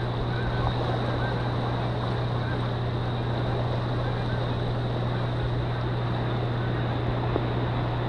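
Steady low hum under a constant rushing noise, unchanging throughout, with no distinct sound standing out from it.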